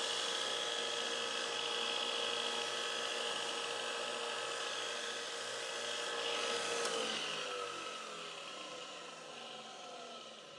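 Electric blade grinder running steadily as a mower blade is sharpened. About seven seconds in the motor is switched off and spins down, its hum falling in pitch and fading.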